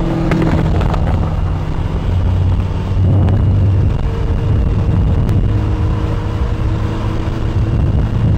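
An engine running steadily, a low hum with a rumble of wind on the microphone.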